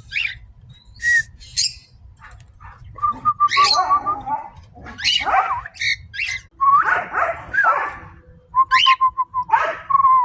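Peach-faced lovebirds calling in a run of short, sharp chirps and squawks, with a few held whistled notes and some harsher, fuller squawks.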